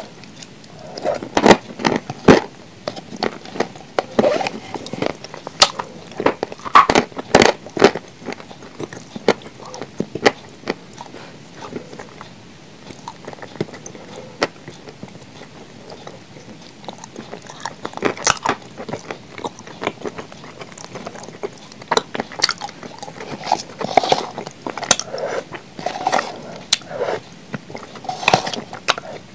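Close-miked eating of blue Uzbek edible clay: crisp, irregular bites and crunches in clusters, with chewing between them, and a quieter stretch in the middle.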